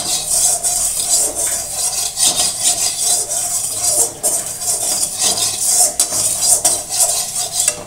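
Wooden spatula stirring and scraping around a steel kadhai heating on a gas stove: a run of rapid scrapes over a continuous hiss.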